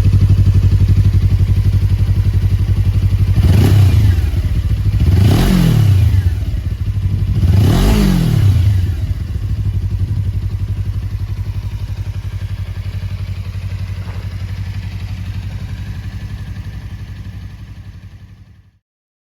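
Suzuki V-Strom 250's parallel-twin engine, with a Yoshimura aftermarket silencer, idling and blipped three times, each rev rising and falling quickly. It settles back to idle and dies away near the end.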